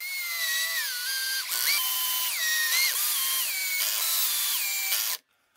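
Power drill driving a wood screw through a clear acrylic plate into a wooden block: a motor whine whose pitch steps up and down as the speed changes, cutting off suddenly about five seconds in.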